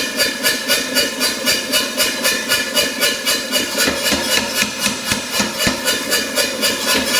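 Power hammer running and striking in a fast, even rhythm of about four blows a second, with a steady hiss and hum under the blows.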